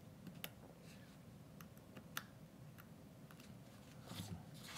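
Faint, scattered clicks and light scraping of a No. 11 hobby knife blade cutting into a basswood wing carving as it shaves off tiny bits of wood, with a slightly louder rustle near the end.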